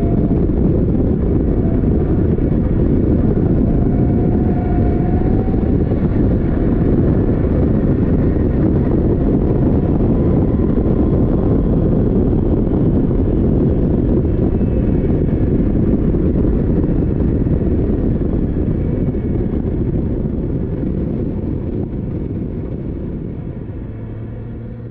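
Onboard sound of an open-cockpit Caterham Seven race car on track: heavy wind buffeting on the microphone with the engine running beneath it. It fades out over the last several seconds.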